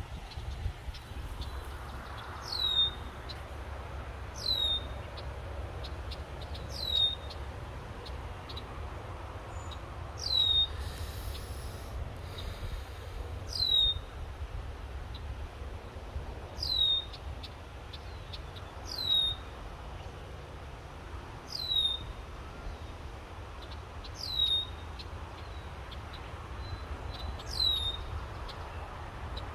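A bird repeats a single short, high call that falls steeply in pitch, about ten times at intervals of two to three seconds, over a low, steady rumble.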